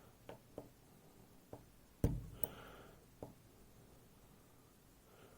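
Faint, sharp clicks and taps of a lock pick working inside a FAB Variant lock as it starts on the sidebar's finger pins: about five isolated clicks, the loudest about two seconds in.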